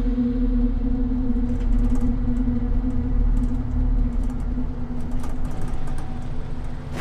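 A continuous deep droning rumble with a steady held hum, presented as the captured sound of solar waves: the Sun's vibrations turned into sound.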